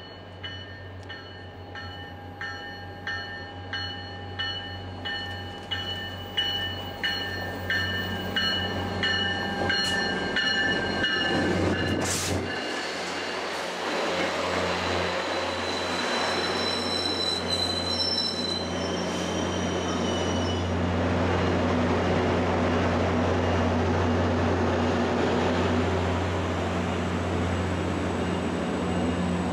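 MBTA commuter train with F40-type diesel locomotives at both ends approaching with its bell ringing steadily, then passing close by: wheels clattering and squealing on the rails. The rear locomotive's diesel engine runs louder near the end as it goes past.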